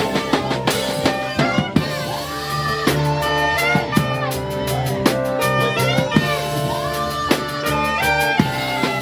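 Live band music with a drum kit keeping a steady beat under sustained chords and a lead melody line that bends up and down in pitch.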